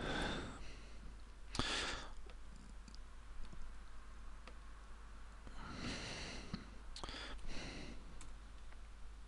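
Quiet computer mouse clicks while text is selected and moved in a document, with a few short audible breaths over a steady low hum.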